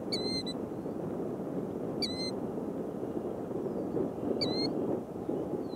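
A bird calling, a short sharp note three times about two seconds apart, with a few fainter falling whistles between, over a steady low rumble.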